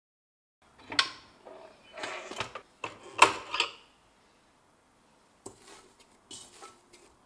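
Metal and plastic clatter from a stand mixer being taken apart: the splash guard and dough hook knock and clink against the stainless steel mixing bowl several times, with the mixer itself switched off. After a short pause come softer rubbing and knocking sounds as the dough is handled in the bowl.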